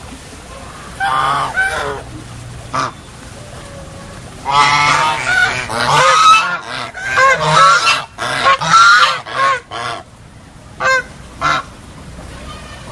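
A flock of domestic ducks, white crested ducks among them, quacking loudly in bursts. A long run of overlapping quacks comes from about four and a half to ten seconds in, with single short quacks before and after it.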